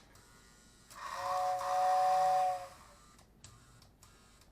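Lionel toy steam locomotive's tender whistle blown once, for about a second and a half: a steady two-note chord over an airy hiss.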